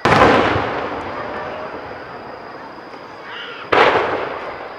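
Two aerial firework shells bursting, the first right at the start and the second about three and a half seconds later, each a sharp bang that echoes away over about a second.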